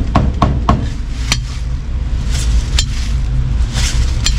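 Heavy meat cleaver chopping cooked pork on a thick round wooden chopping block: a quick run of sharp knocks, about four a second, for the first second, then a few single knocks and a scraping sound as the blade gathers up the cut pieces. A steady low hum runs underneath.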